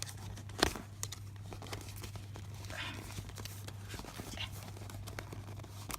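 Handling noises: a single knock about half a second in, then soft rustling and small taps as gear is put away, over a steady low electrical hum.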